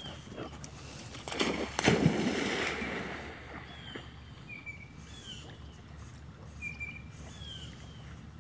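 Dog swimming and splashing through a pond, water sloshing, loudest from about a second and a half to three seconds in.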